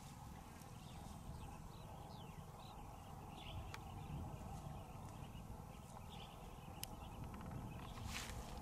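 Faint open-air ambience: a low, steady wind rumble with scattered short bird chirps and a few small clicks, and a brief louder hiss near the end.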